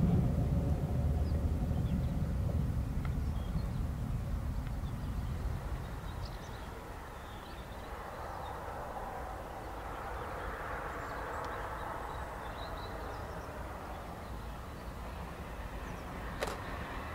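Narrow-gauge steam train running away into the distance, its low rumble fading over the first few seconds and leaving a fainter, steady distant sound with a few bird chirps. A few sharp clicks come near the end.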